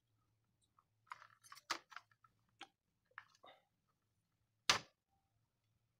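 Screwdriver loosening the screw that holds an IGBT to an aluminium heat sink: a run of small clicks and scrapes, then one sharper click a little over a second later.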